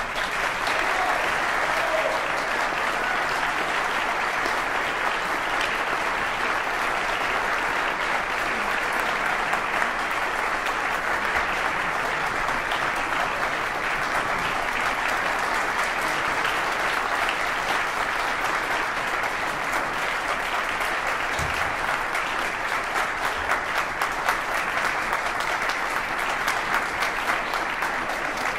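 Audience applauding steadily after the music ends.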